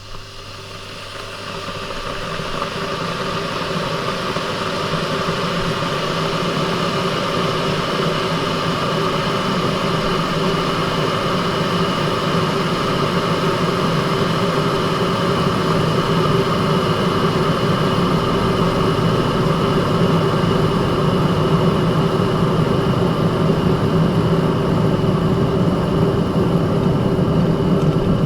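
Electric kettle heating water: a rumbling hiss that builds over the first few seconds, then holds steady.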